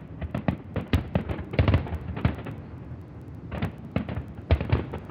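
Fireworks exploding in a rapid, irregular barrage of bangs and crackling pops, with a short lull near the middle before more loud bursts.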